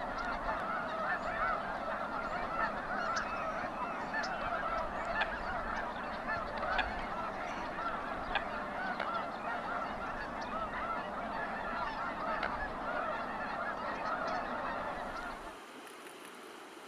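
A large flock of birds calling all together in a dense chorus of short overlapping calls. About fifteen and a half seconds in it cuts to a quieter steady hiss.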